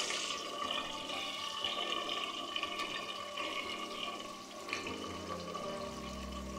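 Sliced onions sizzling in hot ghee: a steady frying hiss that softens slowly as the onions settle into the fat.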